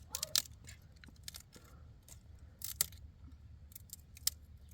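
Scattered sharp clicks and clinks of small hard objects striking: a pair just after the start, another pair near the middle and one more near the end, over a faint low hum.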